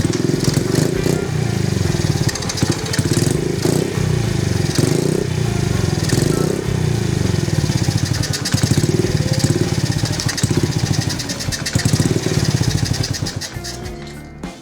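Honda XR50 pit bike's small four-stroke single-cylinder engine running and being revved up and down several times, on a test run to check that it still starts after a full teardown and repaint. It dies away near the end.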